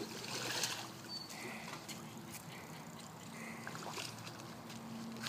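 Faint sloshing and swishing of shallow water as someone wades through it. There are a few soft swells of splashing, most noticeable in the first second.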